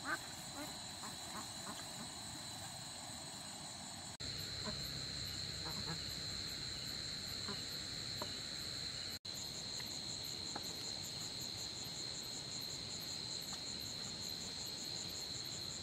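Steady night chorus of crickets and other insects: a continuous high trill with a second, higher trill that pulses evenly. The sound shifts abruptly about four seconds in and again about nine seconds in.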